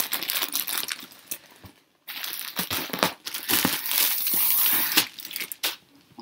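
Thin plastic packaging crinkling and rustling as a rolled pillow is unwrapped and pulled out of its wrap, in two spells: a short one at the start and a longer, louder one from about two seconds in that stops shortly before the end.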